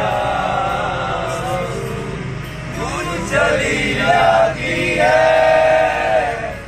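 Men's voices singing a chant-like song together, with long held notes, over the low steady drone of a bus engine.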